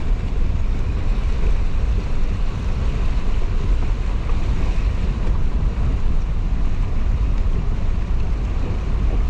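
Wind buffeting the microphone, a heavy uneven rumble, over a steady rushing noise with no break.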